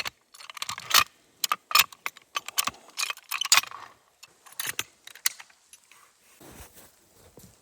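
A Hi-Lift jack being assembled: its running mechanism is slid and fitted onto the steel bar, making a quick series of sharp metal clicks and clanks, which die down to softer sounds for the last couple of seconds.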